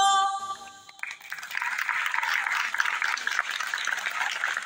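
Music ends on a held note, then an audience applauds.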